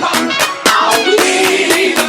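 Background music with a steady beat and a pitched instrumental line.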